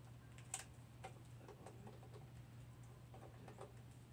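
Near silence: a faint steady low hum with a few faint scattered ticks, one sharper click about half a second in.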